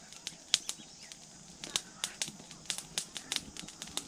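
Corn cobs roasting in a small fire of dry pine needles, crackling with many irregular sharp pops and snaps, the popping coming from the cobs as they roast.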